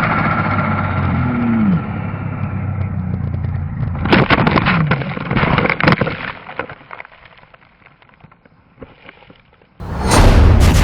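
Snowmobile engine running loud, its pitch falling about a second in, with sharp knocks and cracks around four to six seconds in during the crash into trees. It then dies down low, and a sudden loud burst of noise comes near the end.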